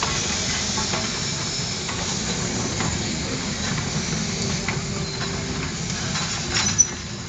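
Small 0-4-0 Porter steam locomotive moving slowly past, its steam hissing steadily, with a single short sharp knock near the end.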